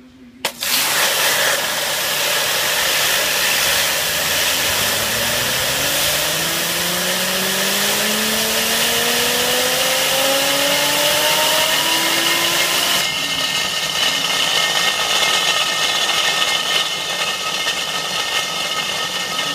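Nissan Diesel RG8 diesel engine being revved up, its pitch climbing steadily for about ten seconds, then held at a steady high speed. It is run up to bring out the knock of its worn-out water pump.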